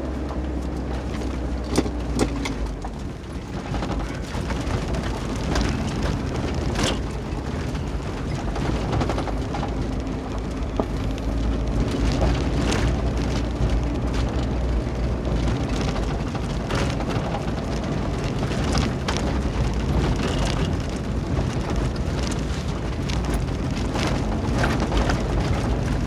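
A 2020 Kia 4x4 driving on a rough dirt-and-gravel road: a steady low rumble of tyres and engine, with many scattered clicks and knocks from gravel and rocks under the vehicle.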